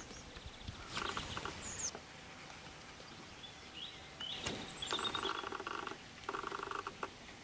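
Common starlings calling: a few short, high whistles and three bursts of buzzy, rattling chatter, each about a second long, the later two close together.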